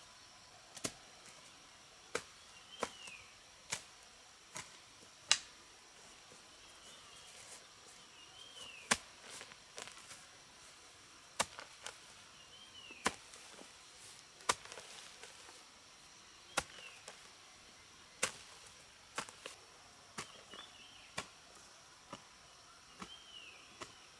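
Sharp, irregular knocks of a hand tool striking, spaced half a second to two seconds apart. A bird gives a short falling chirp about every two seconds, over a faint steady insect whine.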